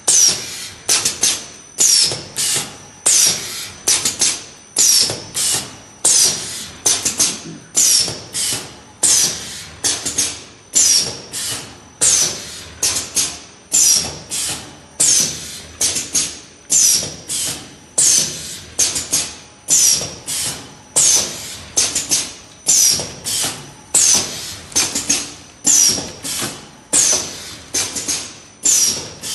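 Ten-head liquid filling machine running, with sharp mechanical strokes and a hiss repeating in a steady rhythm of about three every two seconds.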